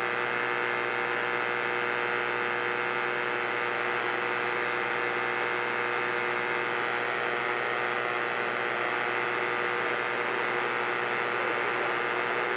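CB radio receiver hissing steadily with a constant hum and a few steady tones over it, between transmissions on the channel.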